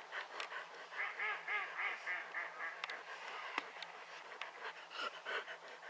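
Ducks quacking: a quick run of short, evenly repeated calls, about four a second for a couple of seconds, then scattered calls. A sharp click about three and a half seconds in.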